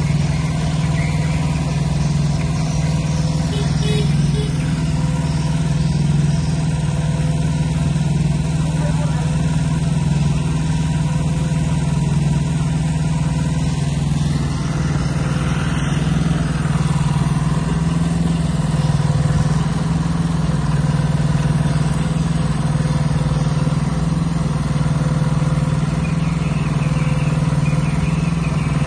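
An engine running steadily at an even speed, a constant low drone that doesn't change in pace.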